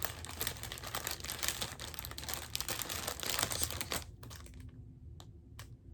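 Plastic jewelry packaging bag crinkling as a necklace is handled and unwrapped. The crinkling runs for about four seconds and then gives way to a few scattered light clicks.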